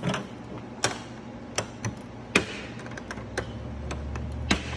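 Irregular sharp taps and clicks, about seven of them, one every half second to a second. A low steady hum comes in about three seconds in.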